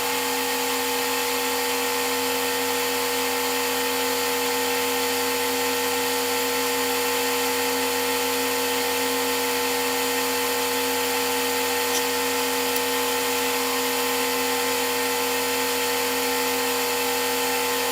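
Oxygen-fed glassworking torch burning with a steady hiss, over a steady motor hum.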